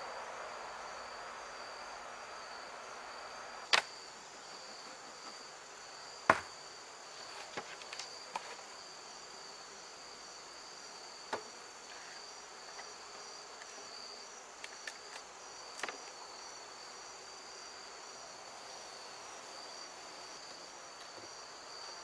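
Steady high-pitched chorus of evening insects, with a handful of sharp clicks and knocks from a metal hive tool prying and tapping at the wooden hive boxes to lift off the honey super; the loudest knocks come about four and six seconds in.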